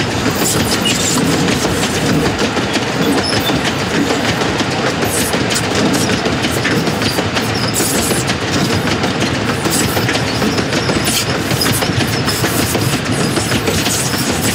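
Loaded sugar cane bins of a 2 ft gauge cane train rolling past close by, their wheels clicking and clattering steadily over the rail joints.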